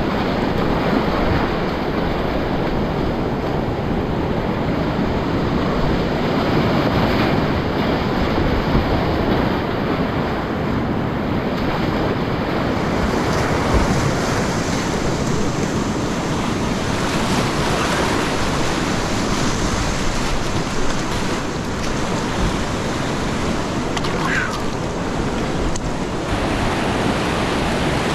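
Whitewater of a steep, high-water creek rapid rushing loudly and steadily around a kayak as it runs the drop, the water close to the microphone.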